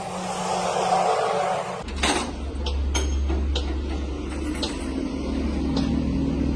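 A steady low rumble with a few short clinks scattered over it, starting abruptly about two seconds in after a duller noisy hum.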